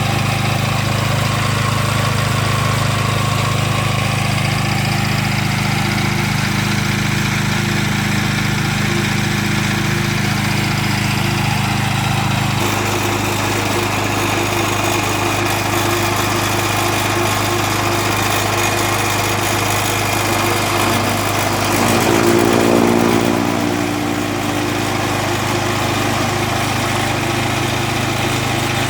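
Small petrol engine of a grass chopper machine running steadily, its note shifting about twelve seconds in, with a brief louder swell a little past twenty seconds in.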